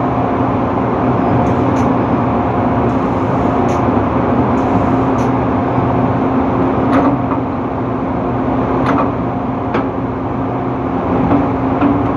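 Steady drone of drilling rig machinery on the rig floor, with a constant hum running through it. A few sharp metallic clanks come through about seven and nine seconds in.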